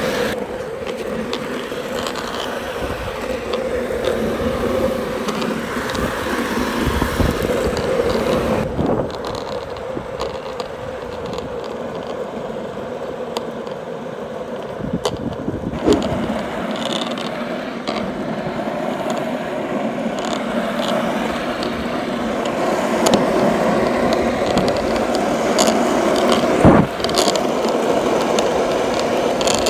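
Skateboard wheels rolling over street asphalt: a steady rumble, broken by a couple of sharp knocks, the loudest a few seconds before the end.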